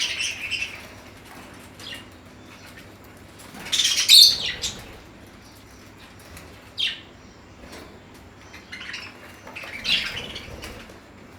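Caged budgerigars and other small parakeets chirping in short bursts now and then, with a flutter of wings.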